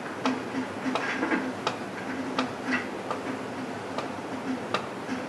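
Irregular sharp clicks, roughly two a second, over a faint hum that comes and goes.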